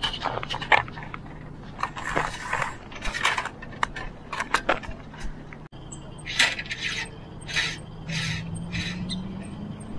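Electrical fish tape paying out from its plastic reel and being pushed into the sailboat mast's internal conduit: irregular metallic clicking, clinking and scraping. The sound breaks off suddenly a little over halfway through, then similar rattles resume.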